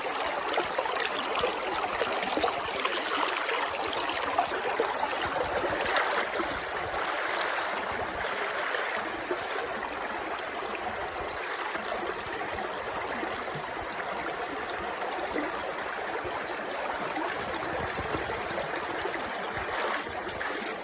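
Small mountain stream babbling steadily.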